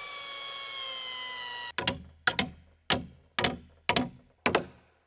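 A steady high-pitched whine, slowly falling in pitch, cuts off suddenly; then a hand tool strikes wood about twice a second, hewing a log.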